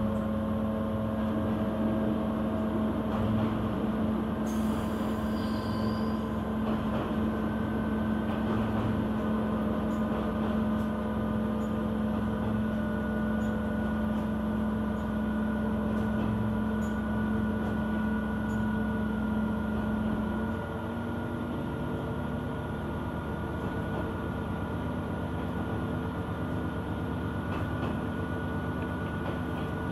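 KiHa 120 diesel railcar running under power, heard from inside the passenger cabin: a steady engine drone over the rumble of the wheels on the rails. About twenty seconds in, the engine note drops and the sound gets a little quieter.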